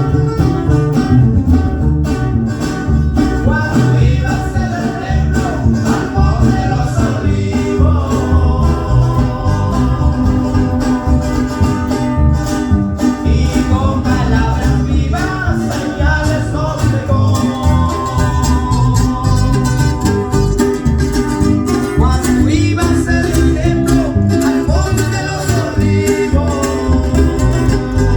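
Live band playing a Latin Christian song through a PA system, with heavy bass guitar, plucked guitar and a steady drum beat.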